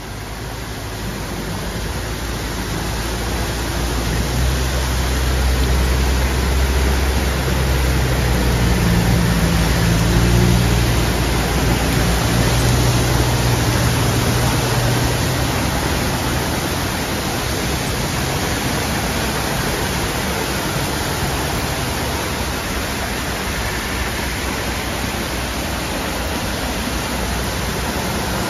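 Torrential rain hissing steadily on a flooded road. Cars drive through the standing water, and a low rumble of engines and tyres in the water builds up and is loudest about ten seconds in.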